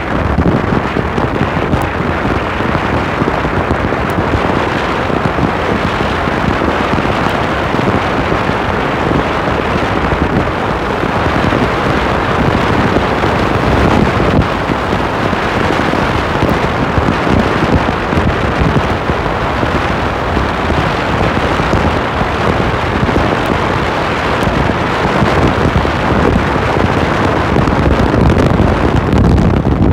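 Loud, steady rushing wind and road noise of a car travelling along a paved highway.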